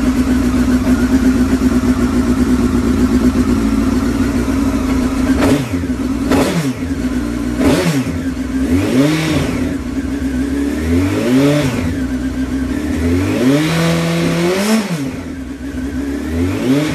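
Honda CBR954RR's inline-four engine idling, a little cold just after starting. It is then blipped several times on the throttle, each blip a quick rise and fall in pitch. It runs evenly now that the failed number 3 spark plug is out, and the owner judges it to be running on all four cylinders.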